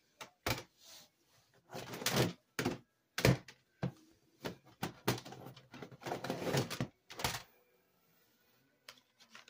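Plastic CD jewel cases being set down and stacked in a cardboard box: a string of sharp clacks and knocks that stops about three-quarters of the way through.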